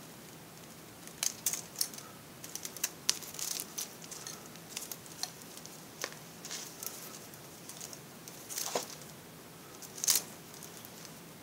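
Small items and packaging being handled by hand: irregular sharp clicks, taps and short crinkling rustles, the loudest about three seconds in and again near the end, over a steady low hiss.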